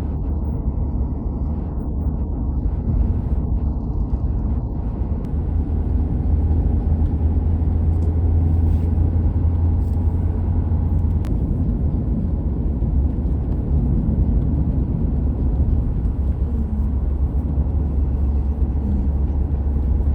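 Steady low rumble of a vehicle driving: engine and road noise, unchanging throughout.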